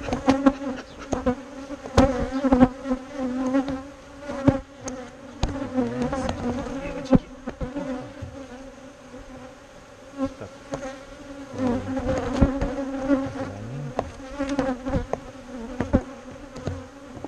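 Honeybees from an angry, defensive colony buzzing in a steady hum around an open hive. Frequent sharp knocks and clicks come from the hive's upper box and wooden frames being handled.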